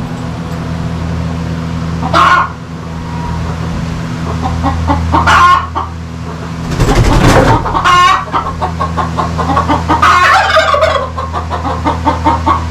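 Chickens calling and clucking in a coop: a few separate calls spaced a few seconds apart, the longest near the end, with a brief rustling flurry midway. A steady low hum runs underneath.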